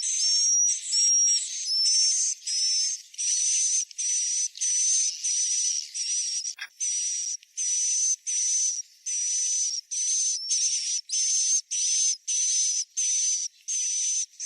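Recorded swiftlet roosting call ('suara inap'): rapid, evenly repeated high chirps, about two a second, each a hissy buzz with a thin high whistle. It is a lure sound played to draw swiftlets into a new swiftlet house.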